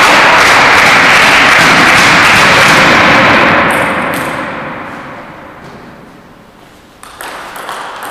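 A loud steady rushing noise fades away over a few seconds. From about seven seconds in, sharp clicks of a table tennis ball come off the paddles and the table as a rally starts.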